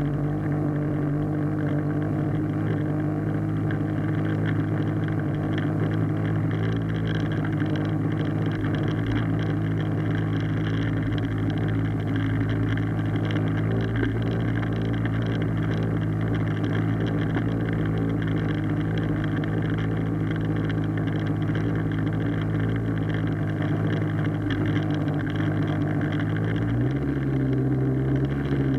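Small Hangkai outboard motor running at a steady speed, its pitch shifting slightly near the end. The engine runs but the propeller is not spinning, so the motor is not driving the boat.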